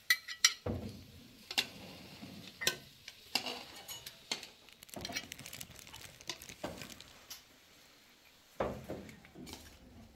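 Metal ladle and serving dishes clinking and scraping against cooking pots as rice and stew are dished out: a scattered run of sharp clinks, with a duller knock near the end.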